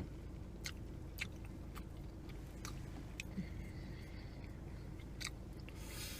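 Chewing and biting on fried food close to the microphone, with about five short sharp clicks spread through it, over a steady low hum.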